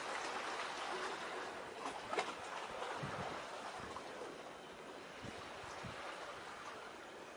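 Steady rushing seaside ambience of lapping water, with a few faint knocks and one sharper tap about two seconds in, easing off slightly toward the end.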